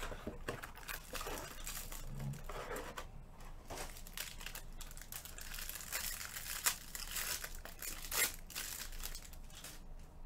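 Baseball-card pack wrapper crinkling and tearing as a pack of 2019 Bowman Chrome cards is ripped open by hand, a run of crackles with a few sharper ones past the middle.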